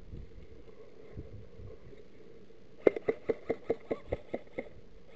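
Airsoft rifle firing a quick string of about ten shots close by, roughly five a second, each a sharp click with a short mechanical whir, starting about three seconds in.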